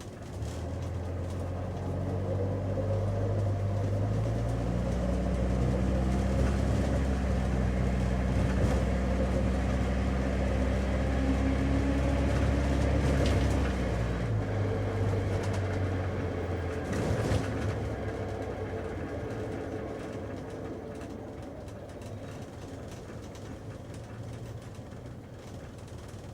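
Taxi cabin while driving: steady engine hum over road noise. The engine drone swells just after the start, steps up in pitch a few seconds in as the car pulls harder, and drops back about halfway through. The sound then dies away gradually toward the end, with a couple of short knocks in the middle.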